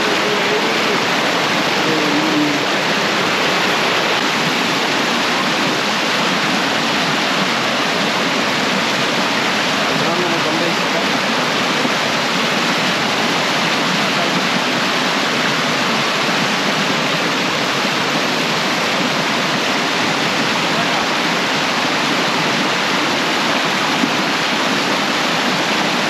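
Steady, loud rush of falling water from a waterfall, an even noise that does not change.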